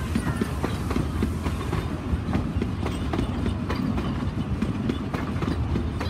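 Puffing Billy's narrow-gauge wooden passenger carriages rolling along the track: a steady rumble of wheels on rail with quick, irregular clicks and knocks.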